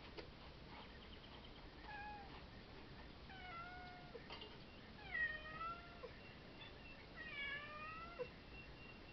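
A domestic cat meowing four times over several seconds, the third meow the loudest.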